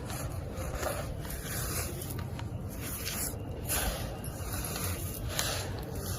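Crumbled cement being mixed in water: an uneven run of gritty crunching and scraping strokes with a few small sharp crackles.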